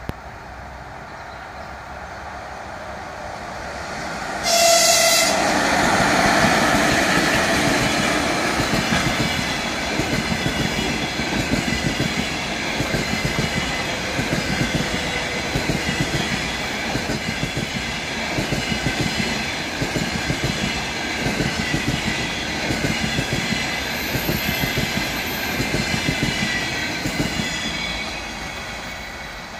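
ChS7 electric locomotive and its passenger coaches passing at speed, the locomotive coasting with its pantographs lowered. The approach builds, a short horn blast sounds about four and a half seconds in as the locomotive arrives, then the coaches clatter past in a steady rhythm of wheels over rail joints, fading near the end.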